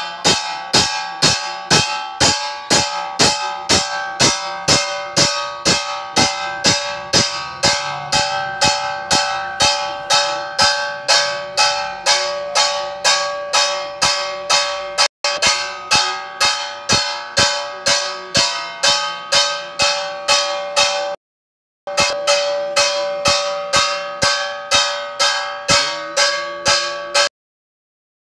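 Metal bell struck in a steady rhythm, a little over two strokes a second, each stroke ringing on into the next; the sound cuts out briefly a few times, the longest gap near the end.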